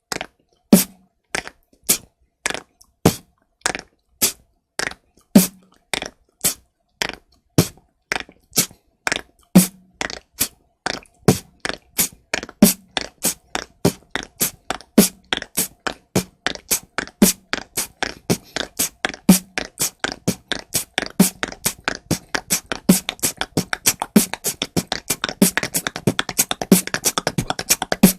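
Beatboxer looping a basic four-beat pattern of kick, hi-hat, snare and hi-hat, with a tongue click roll after each sound. The loop starts slow and speeds up steadily, the strokes crowding closer together toward the end.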